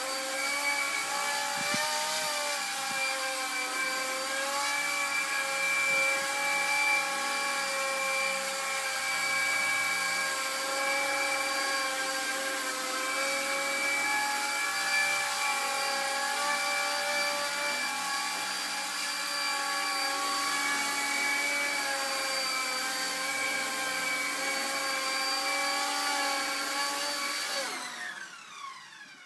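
Hubsan Lynx H101B micro RC helicopter's electric motors and rotors whining steadily in a hover, the pitch wavering slightly. Near the end the whine falls quickly in pitch as the motors spin down on landing.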